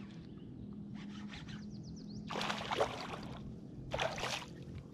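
Hooked largemouth bass splashing and thrashing at the surface as it is reeled in alongside a kayak: three short splashes, the loudest about halfway through.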